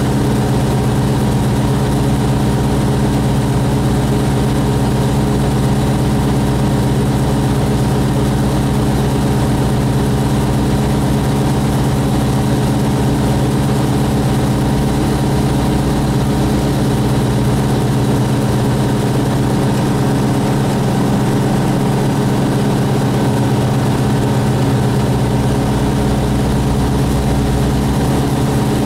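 Single-engine light aircraft's engine and propeller droning at a steady, unchanging pitch in cruise flight, heard from inside the cockpit.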